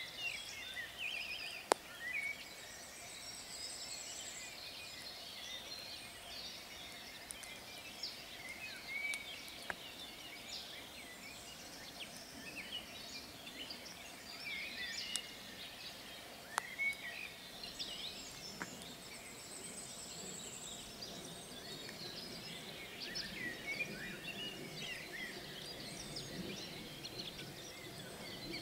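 Songbirds singing and calling in a busy chorus of overlapping chirps, whistles and trills, with a few sharp clicks scattered through it.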